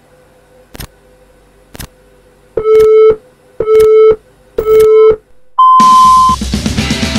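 Countdown timer sound effect: ticks once a second, then three short beeps a second apart and a longer, higher final beep marking the start of the exercise. Music with a beat starts just after the last beep.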